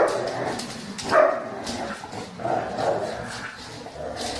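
Dogs playing tug-of-war over a rope toy, giving several short barks; the loudest come at the very start and about a second in.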